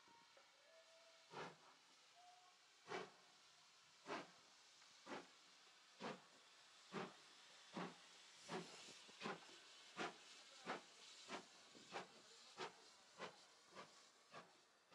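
Steam locomotive no. 9351, a 2-6-0, pulling away from a standstill. Its faint exhaust chuffs start about a second and a half apart and quicken to well under a second apart as it gathers speed, over a steady hiss of steam.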